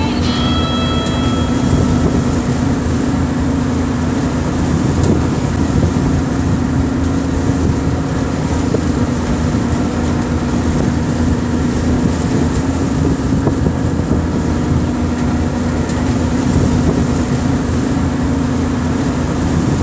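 Steady road and engine noise of a vehicle driving at highway speed, heard from inside the cab, with a constant low hum.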